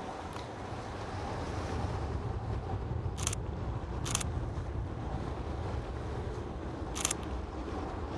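Three short shutter clicks from a Nikon Z50 camera, the first two about a second apart and the third about three seconds later, over a steady low rumble.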